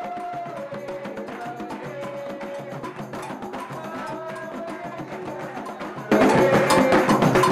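Music with a slow melody of held notes over steady wood-block-like tapping. About six seconds in it jumps abruptly much louder into dense drumming and percussion.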